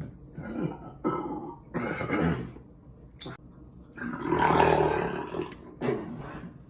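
A man's long, deep, smooth burp about four seconds in, the loudest sound here, with shorter throaty sounds before it.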